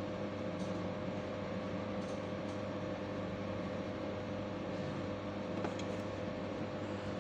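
Steady machinery hum aboard a tanker under way: a low drone with a steady higher tone over it, and a few faint clicks.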